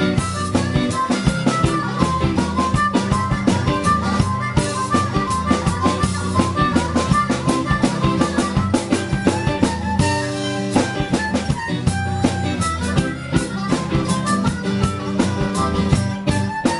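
Live blues band playing an instrumental passage: a blues harp, cupped to a microphone, plays runs of short notes over strummed acoustic guitar, electric guitar and drums with a steady beat.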